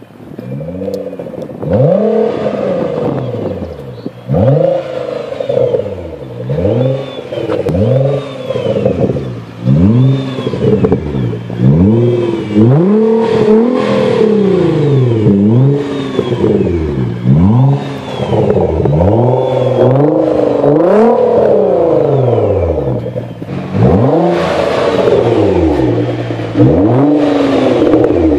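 Nissan GT-R R35's twin-turbo V6 breathing through a GTC catback exhaust, revved again and again while stationary. Each blip rises and falls in pitch, about one every second or two, with a longer, steadier rev near the end.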